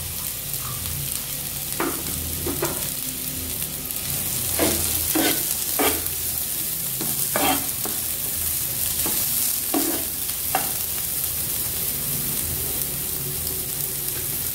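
Diced carrots and beans sizzling as they sauté in butter in a non-stick frying pan. A metal ladle stirs them, scraping and knocking against the pan in short strokes, mostly between about two and eleven seconds in.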